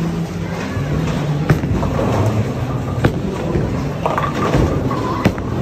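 Bowling ball rolling down a wooden lane with a low rumble, strongest in the first couple of seconds, amid bowling-alley noise with three sharp knocks.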